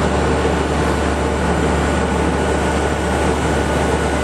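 Steady, loud drone of aircraft machinery on the apron beside a parked Boeing 777-300ER: an even low hum with a thin, high steady whine over it.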